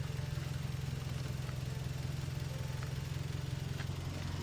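Car engine idling steadily, with a few faint clicks over it.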